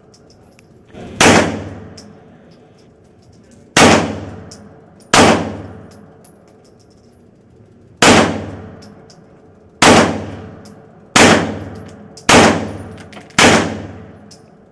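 Eight handgun shots fired one at a time at an uneven, unhurried pace, one to two and a half seconds apart. Each is a sharp crack with a ringing tail that dies away.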